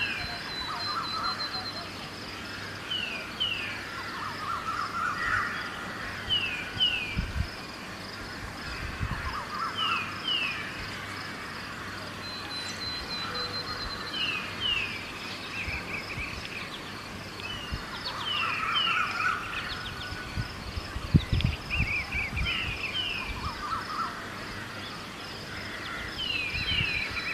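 Birds calling in the open, one repeating a pair of short falling chirps every three to four seconds while others, crows among them, call in between. A steady high pulsing runs underneath, with a few low thumps.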